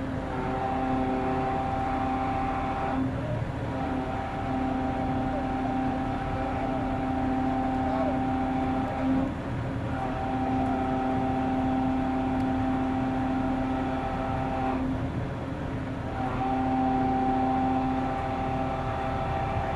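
Steady pitched machine hum that sounds in stretches of three to six seconds with short breaks, over a constant low engine rumble.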